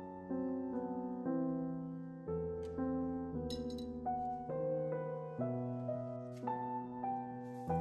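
Gentle background piano music, note after note at an even pace. A few faint clinks are heard around the middle.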